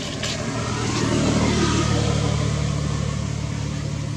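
A motor vehicle's engine humming steadily, growing louder for the first second or two and then easing off as it passes by.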